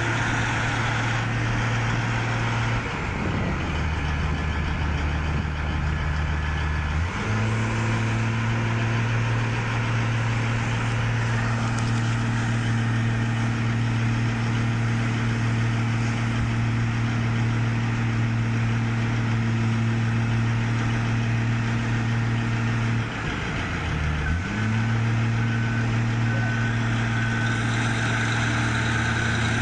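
A heavy equipment engine running steadily. Its speed drops twice and comes back up each time, once for about four seconds near the start and once briefly later on.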